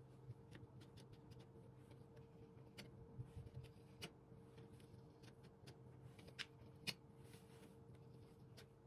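Faint kitchen handling while cupcake batter is filled into paper liners on a baking tray: scattered light clicks, taps and soft rustles, two slightly sharper taps near the end, over a steady faint hum.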